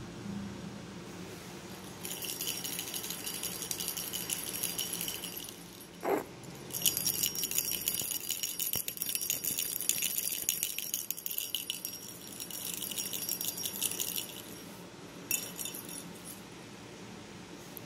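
A small plastic cat-toy ball with a bell inside jingling in three spells of quick, rattling jangles as it is moved and rolled. There is a short squeak about six seconds in.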